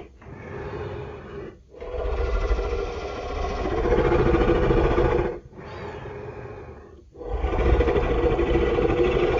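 Gorosaurus kaiju roar sound effect: a run of long, drawn-out roars broken by three short breaks, the last one the loudest.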